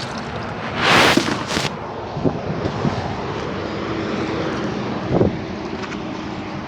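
Steady outdoor noise of wind and road traffic, with two short loud hisses about a second in and a faint low steady hum in the middle.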